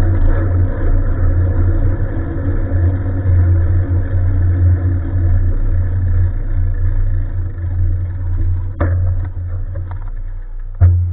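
Steady low rumble of riding a bicycle on a winter road, tyre and wind noise picked up by a Tec Bean action camera, slowly getting quieter, with a sharp knock about nine seconds in and another near the end.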